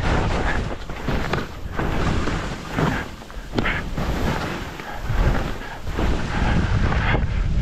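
Wind rushing and buffeting over the camera microphone while skiing downhill, rising and falling in gusts, with the hiss and scrape of skis on snow.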